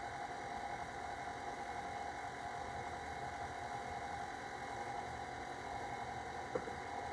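Stand mixer motor running steadily, its paddle attachment mixing bread dough, with one small click near the end.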